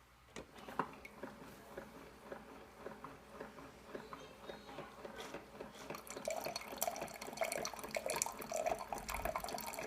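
Single-serve coffee maker brewing a descaling cycle of hot water and white vinegar into a mug: scattered drips at first, becoming a denser, steadier pour of liquid about six seconds in.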